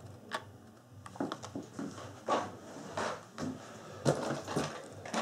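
Blister-carded Hot Wheels die-cast cars being handled: irregular clicks and crinkles of plastic blisters and card backings as they are put down and picked up, about half a dozen sharper clacks among them.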